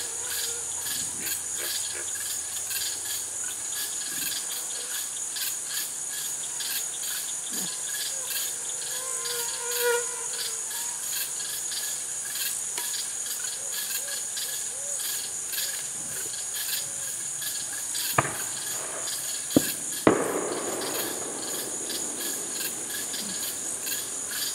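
Evening chorus of crickets and other insects: a steady high-pitched trill, pulsing about three times a second. Three sharp bangs a little after three-quarters through, the loudest sounds.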